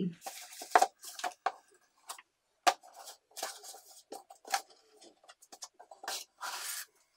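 Cardboard shipping box being opened by hand: scattered small scrapes, taps and rustles of cardboard, with a longer rasp a little after six seconds.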